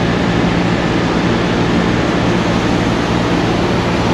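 50-ton heavy rotator tow truck's diesel engine running steadily at raised revs to drive the hydraulics while the boom lifts a loaded box truck.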